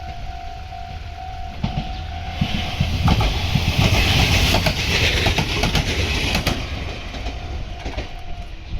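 Meitetsu electric train passing close by over a level crossing, its rush and rail-joint clatter loudest in the middle stretch and then fading. The crossing's warning bell rings steadily underneath and stops shortly before the end.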